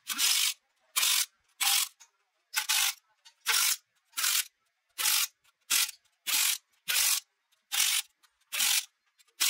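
A hand tool worked on the gearbox in short, even strokes: about a dozen rasping bursts, roughly one every 0.7 s, with silence between them.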